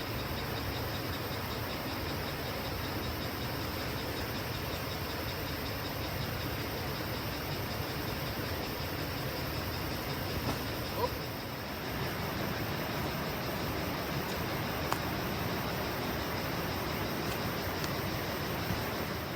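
Steady rushing noise with no clear pitch or rhythm, unbroken for the whole stretch.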